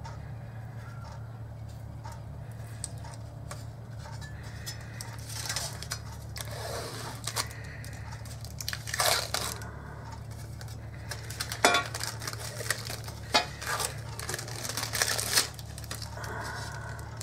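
Blue protective plastic film being peeled off sheet-metal grain-mill hopper parts, crinkling and tearing in irregular bursts, with a couple of sharp clicks in the second half.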